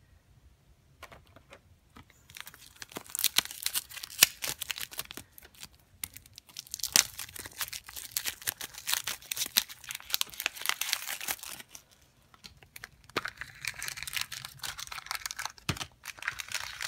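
Plastic packaging of a blind toy pumpkin crinkling and tearing as it is unwrapped and opened by hand. It is a dense run of crackles starting a couple of seconds in, with a brief pause about three-quarters of the way through.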